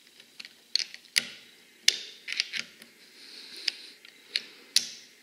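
Steel screwdriver tips clicking and scraping against the access pin retaining spring and the receiver of a Saiga 12 shotgun as the spring is pushed down under the access pin: about ten sharp, irregular metal clicks.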